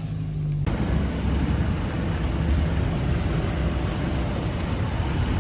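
A car moving slowly over paving, giving steady engine and tyre noise that starts abruptly about a second in, after a low steady hum.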